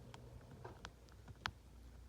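Pet rat sneezing: a few faint, short, sharp sneezes, the sharpest about one and a half seconds in.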